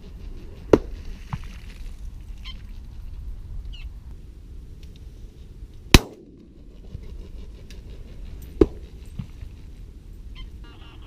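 Three shotgun shots fired from a reed hide: about a second in, at about six seconds, and two and a half seconds after that. The middle shot is the loudest, and each one trails off in a short echo.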